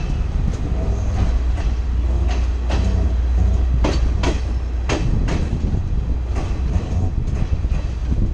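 Passenger train running on the rails, heard from an open carriage doorway: a steady low rumble of the wheels with irregular sharp clacks as they cross rail joints.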